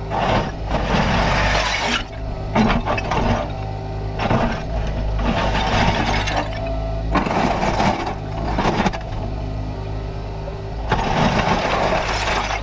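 Kubota KX61-3 mini excavator's diesel engine running steadily, with repeated noisy bursts every second or two as the machine works.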